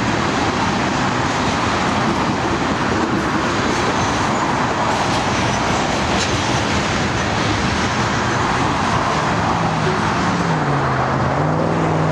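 Loaded coal hopper cars rolling past, a steady rumble and clatter of steel wheels on rail. Near the end the rail noise thins and a diesel engine drone drops in pitch and then holds steady, as the trailing locomotive goes by and recedes.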